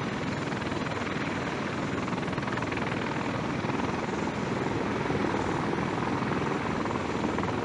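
Bell Boeing V-22 Osprey tiltrotor in helicopter mode, its two rotors and engines running with a steady, rapid rotor beat.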